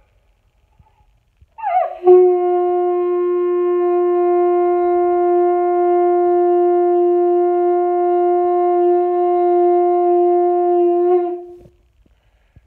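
Triton seashell horn blown in one long blast at a steady pitch. It swoops briefly into the note about a second and a half in, holds for about nine seconds, and stops near the end.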